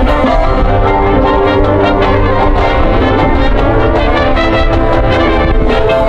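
Marching band brass section playing sustained chords, with a steady low bass underneath.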